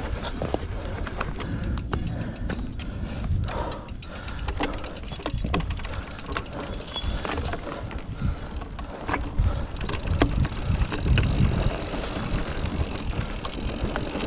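Santa Cruz electric mountain bike ridden over a rough dirt trail: a steady tyre and trail rumble with frequent knocks and rattles from the bike over bumps.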